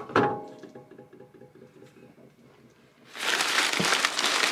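A knock against a stainless steel sink that rings on and dies away over about two seconds. About three seconds in, crumpled newspaper packing starts rustling and crinkling as a hand digs through a cardboard box.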